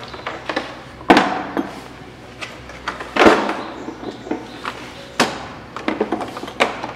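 Clunks and knocks of a hard plastic tool case and the drill in it being handled, the loudest about three seconds in, with lighter clicks and rattles between.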